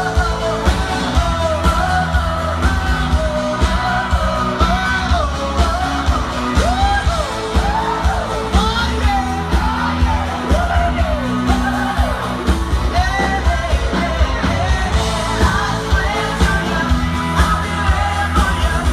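Live pop-rock band playing with a steady drum beat under a wordless sung "oh, oh" vocal line, the call-and-response singalong part of the song.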